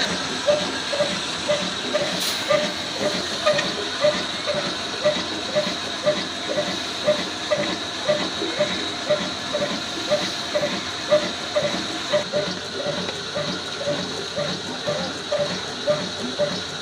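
Old black single-cylinder-style diesel engine of about 24-25 horsepower running steadily under load, its exhaust beating a little over twice a second over a constant hiss.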